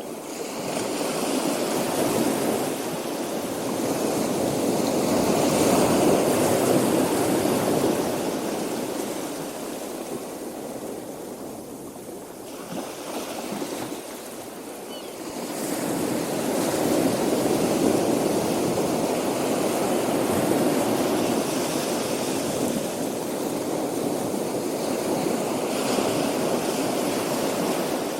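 Ocean surf washing onto a beach, a steady rushing that swells and ebbs slowly, building to two long peaks, the second just past halfway.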